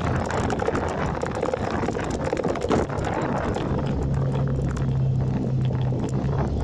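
Motorcycle riding at road speed: wind buffeting the phone's microphone over the engine's hum, which settles into a steady note about three and a half seconds in.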